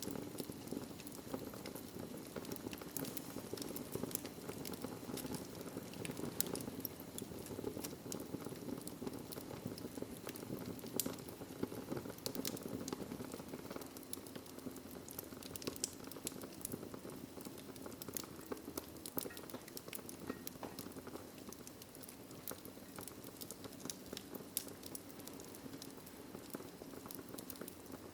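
Wood fire burning in a fireplace: a steady low rush of flames with many small, irregular crackles and pops throughout.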